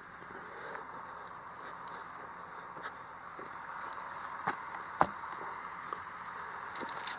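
Steady, high-pitched chorus of insects such as crickets, with a few short light clicks about halfway through.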